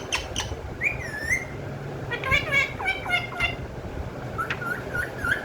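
Pet talking parrot calling: a few sharp clicks, a whistled glide about a second in, then a run of high-pitched, speech-like chatter in the middle and a string of short chirps near the end.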